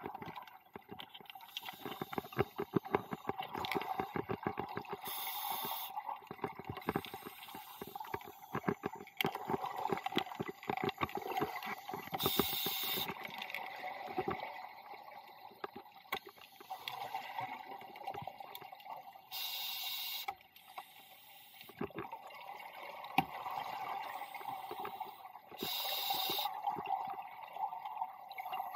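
Scuba regulator breathing heard underwater: a short hiss of inhalation about every seven seconds, four times, each followed by a long stretch of exhaled bubbles bubbling and crackling.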